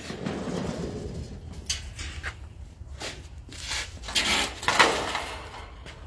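Sheet of pressed-tin ceiling tile scraping and rattling as it is dragged off a stack and laid down on concrete, in a string of short scrapes with two longer, louder ones about four and five seconds in.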